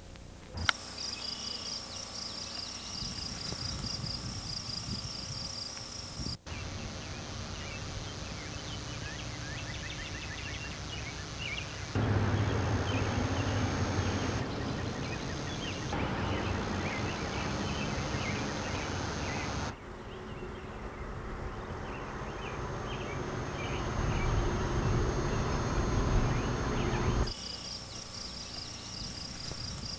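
Outdoor summer ambience: insects chirping in a high, rapidly pulsing trill. It is mixed with stretches of low rumbling noise, and the background changes abruptly several times where the shots are cut.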